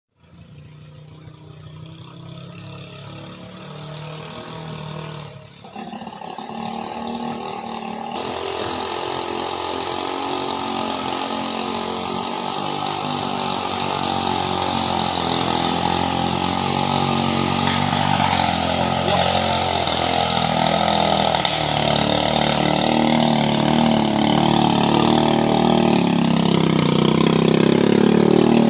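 Engine of a timber-hauling vehicle running under load, its pitch rising and falling as it works, growing steadily louder as it draws closer.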